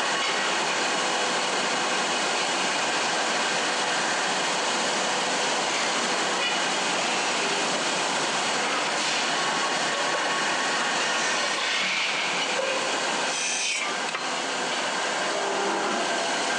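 Lathe spinning a metal pressure cooker lid with a tool held against it: a steady grinding hiss of metal being turned, with a few faint steady tones through it.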